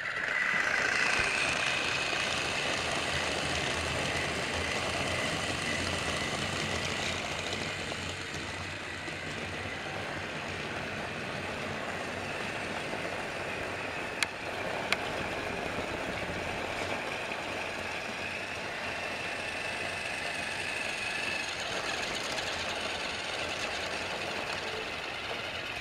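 Battery-powered TrackMaster toy train motor running steadily as the engine rolls along plastic track: a continuous whir and rattle with a faint high whine that comes and goes. Two sharp clicks about a second apart near the middle.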